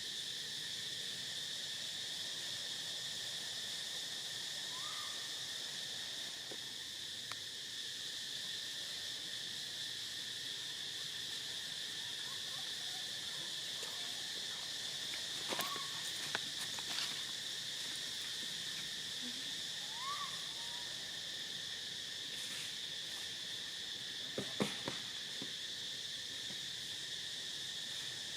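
Steady, high-pitched chorus of insects droning without a break. A few faint short rising calls come through now and then, with a couple of brief clicks or knocks about halfway and again near the end.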